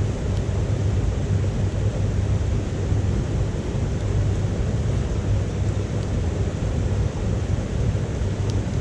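Wood fire burning in a small titanium wood stove, with a few faint crackles over a steady low rumble.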